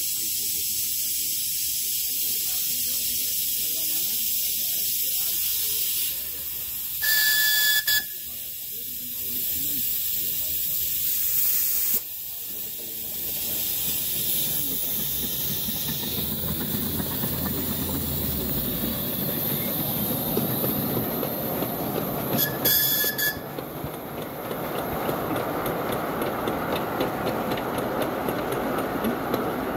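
A 7¼ in gauge miniature steam locomotive hissing steam, then sounding a short whistle about seven seconds in and again near 22 seconds. After that the train pulls away, its wagons rumbling and clattering along the track.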